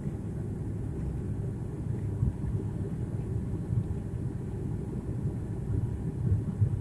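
Airliner cabin noise on descent: a steady low drone and rumble, with a few louder bumps near the middle and end.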